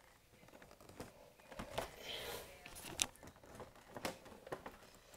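Scattered light clicks and knocks of the plastic body and release catch of a Dyson DC14 upright vacuum cleaner being handled, about six in all, with a faint rustle around two seconds in.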